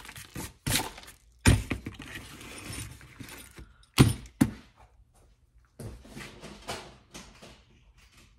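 Hands sweeping wire scraps and handling and setting down small parts, a wire-wound toroid core and a plastic terminal block with coax, on a cardboard-covered workbench. There is rustling between a run of sharp clicks and knocks, the loudest about a second and a half in and at four seconds.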